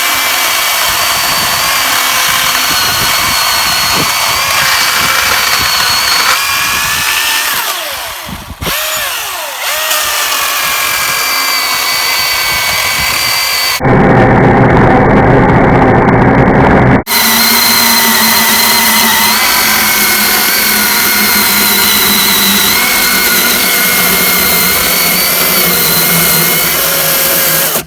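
Milwaukee 18-volt cordless chainsaw running and cutting through dry hard maple logs, a steady high motor whine that dips and winds back up about eight seconds in. In the middle, for about three seconds, the sound switches abruptly to a louder, lower saw noise.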